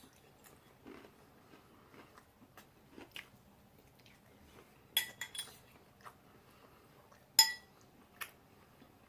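Metal fork clinking against a salad bowl or plate while eating, with two sharp ringing clinks about five seconds and seven and a half seconds in, the second the loudest, and quieter clicks and chewing between.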